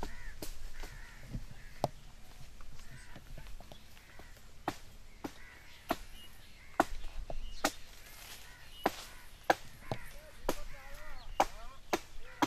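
Birds calling, with sharp clicks at irregular intervals, about one a second.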